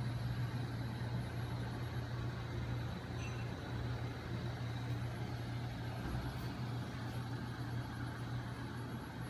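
Homemade magnet engine rig running steadily: a 12 V DC electric motor spins a 5 kg flywheel and its magnet arms, giving a steady low hum with a mechanical whir.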